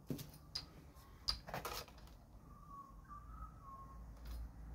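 A few light clicks and knocks as a piston with its rings is lifted off and set back down on a metal-topped digital kitchen scale, the loudest about a second in. Later a faint wavering high tone is heard.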